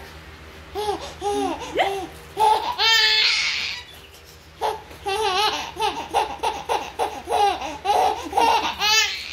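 Baby laughing in two runs of quick repeated giggles, a short one with a high squeal at its end about three seconds in, then a longer run after a brief pause.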